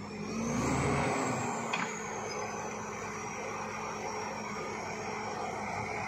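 Bulldozer's diesel engine running, revving up briefly just under a second in, then settling back with a high whine that slowly falls in pitch; a single short knock about two seconds in.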